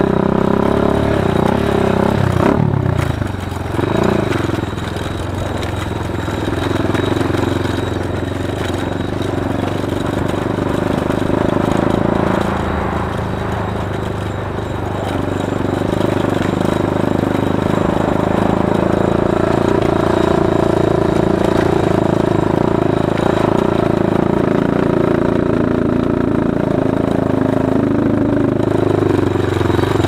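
Motorcycle engine running as the bike rides along a bumpy dirt track. The engine eases off a few seconds in, then picks back up about halfway and runs steadily.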